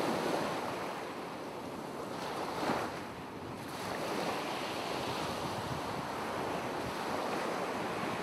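Ocean surf washing steadily, with a brief swell about two and a half seconds in.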